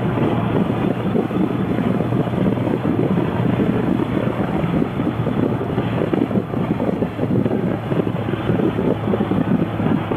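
Motorcycle on the move: wind rushing and buffeting over the microphone, with the engine's steady low drone underneath.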